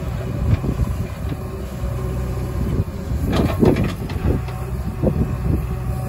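JCB 3DX backhoe loader's diesel engine running steadily under load while its backhoe bucket digs into a soil pile, with a brief burst of clatter about three and a half seconds in.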